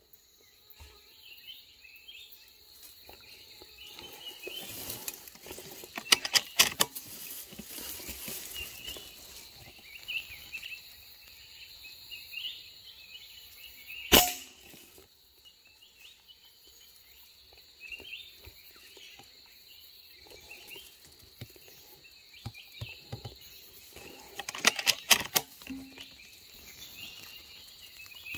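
A single sharp shot from a scoped rifle, aimed at birds, about halfway through. It plays over a steady high drone of insects and scattered bird chirps, with short runs of quick sharp clicks about a quarter of the way in and near the end.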